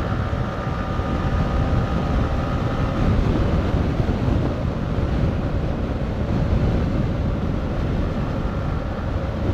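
Yamaha R15 motorcycle being ridden at speed: steady engine noise mixed with heavy wind rush.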